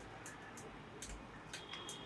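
Faint, scattered sharp clicks of M&M candy shell pieces in a meat grinder, about five in two seconds. A faint, thin high tone comes in about one and a half seconds in.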